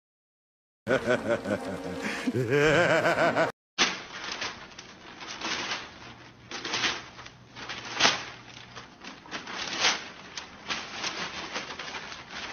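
Newspaper rustling and crinkling in irregular bursts as a golden retriever grabs and tugs at the pages. Before it, a few seconds of a wavering pitched sound.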